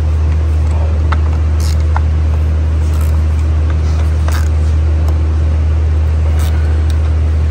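A steady low hum throughout, with a few scattered sharp clicks from a quarter-inch ratchet and 8 mm socket as the ignition coil hold-down bolts are cracked loose by hand.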